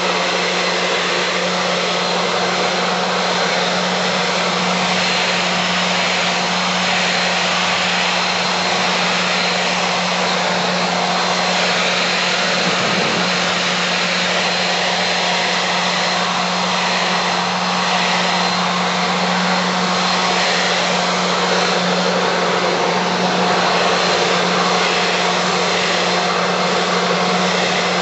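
Handheld leaf blower running steadily while blowing snow: a constant motor hum under the rush of air.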